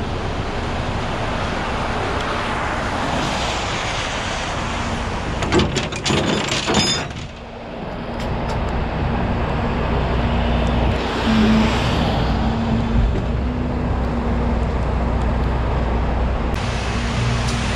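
Freeway traffic going by on wet pavement, a steady hiss of tyres that swells twice as vehicles pass. A few sharp metallic clicks come around six seconds in, and from about eight seconds a steady low engine hum sets in underneath.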